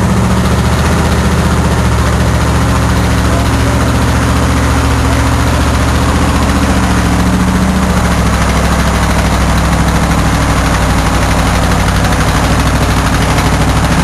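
A 4x4 truck's engine running loud and close at steady low revs, without revving, under a constant hiss.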